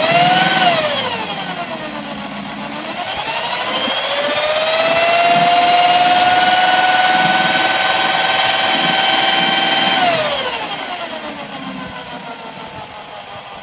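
BMW M62TU V8 running with its drive belts off and being revved: a quick blip at the start, then raised to higher revs and held steady for about five seconds before falling back to idle. The engine carries an unidentified noise that the owner places in the left (bank 2) cylinder bank, still there with the belts removed.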